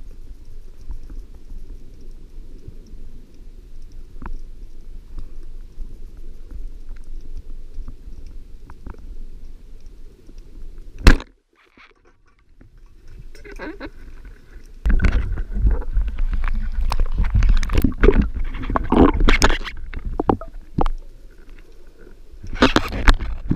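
Muffled low rumble of water against an underwater camera housing, a single sharp click about eleven seconds in, then from about fifteen seconds loud irregular crackling and knocking.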